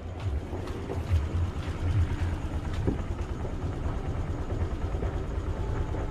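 Honda scooter's small single-cylinder engine idling steadily with a low, uneven rumble.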